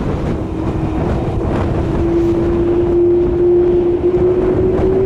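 Airbus A300-608ST Beluga's General Electric CF6-80C2 turbofans whining on the landing roll, one steady tone rising slowly in pitch, over heavy wind buffeting on the microphone.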